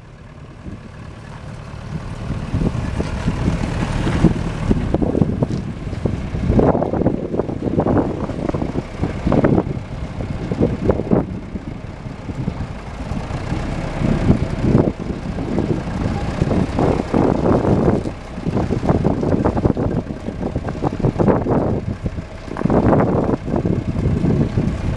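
John Deere 510C loader backhoe's diesel engine running, growing louder over the first few seconds and then rising and falling unevenly.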